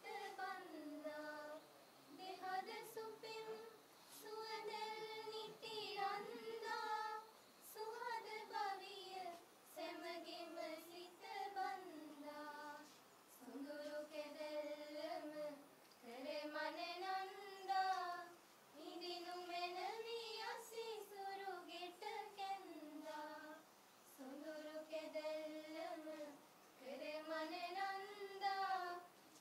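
A group of young women singing together in unison, unaccompanied, in a slow chant-like melody of short phrases with brief pauses for breath.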